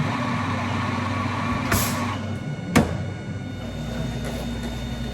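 Coffee-shop machinery running with a steady hum, a short burst of hiss about two seconds in, and a sharp click soon after.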